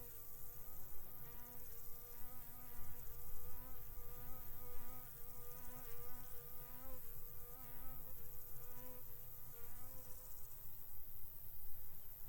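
A flying insect buzzing, its pitch wavering up and down as it moves, then stopping about ten seconds in. A low wind rumble runs underneath.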